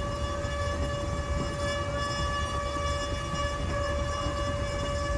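A train's horn holding one long, steady note over the low rumble of the train running on the track.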